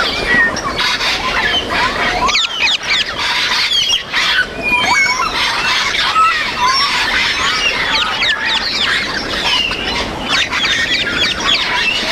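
Parrots calling over one another, a dense mix of short whistles, chirps and squawks that rise and fall in pitch without pause.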